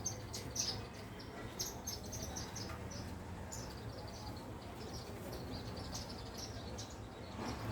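Indian silverbills giving many short, high chirping calls in quick, irregular succession, over a low steady hum.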